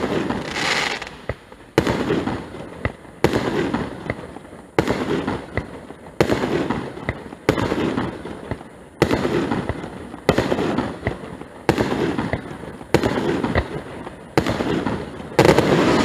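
Aerial firework shells bursting one after another, a sharp bang about every second and a half, each followed by a rumbling echo that fades before the next.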